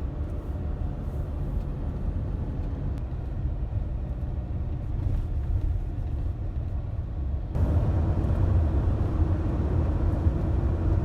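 Motor vehicle on the move: a steady low rumble of engine and road noise, getting louder about seven and a half seconds in.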